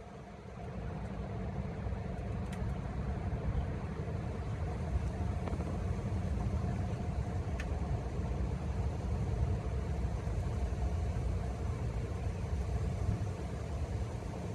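A low, steady rumble that swells about a second in and eases near the end, with two faint clicks.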